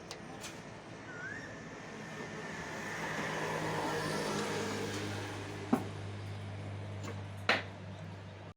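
A vehicle going past, its noise swelling and then fading, over a steady low hum. Two sharp clicks near the end.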